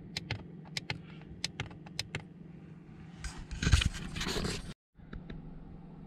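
Handling noises: a run of sharp clicks, then a louder scraping rustle, over a steady low hum. The sound drops out completely for a moment near five seconds in.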